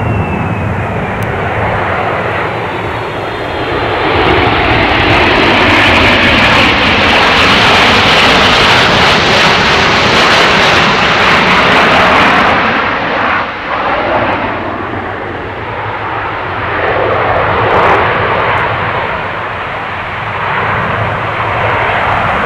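Jet noise from a Boeing C-17 Globemaster III's four turbofan engines as it flies past in a display. A whine falls in pitch at the start. The noise grows loud from about four seconds in, eases after about twelve seconds, and swells again near the end.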